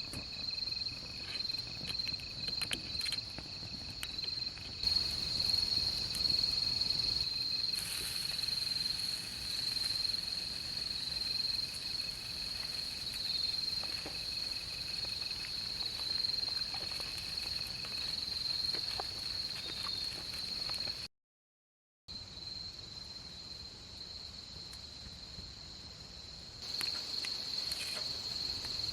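Insects trilling steadily in a high, unbroken chorus, with a second, lower trill under it, and scattered small ticks and crackles. The sound cuts out completely for about a second past the middle, then returns.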